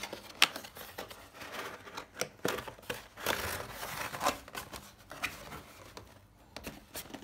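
Cardboard box being opened by hand: the tuck tab is pulled free and the lid lifted, with irregular scraping and rubbing of cardboard on cardboard and a sharp click about half a second in.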